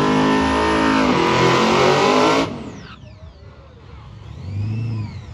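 High-horsepower donk race car's engine at full throttle on a drag run, held at high revs with a brief dip and recovery about a second in. It cuts off abruptly about two and a half seconds in, leaving quieter sound with faint rising and falling whines.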